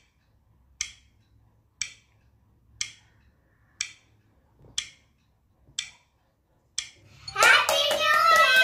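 Countdown sound effect: a short, bright tick once a second, eight times. About seven seconds in, children break into loud, high-pitched shouting and cheering, with hand claps.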